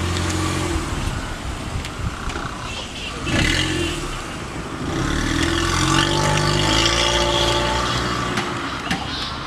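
A car engine running, its pitch shifting slowly, with a short rush of noise about three and a half seconds in.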